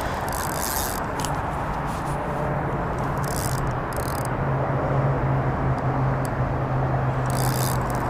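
Steady roar of city traffic with a constant low hum, broken by a few short high hissing bursts.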